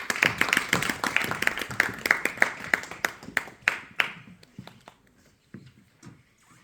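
A small audience clapping, the applause thinning out and dying away after about four seconds, leaving a few scattered claps.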